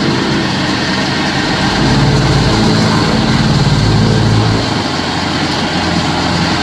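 Stump grinder's engine running hard without a break, its note shifting up and down a few times as the load changes.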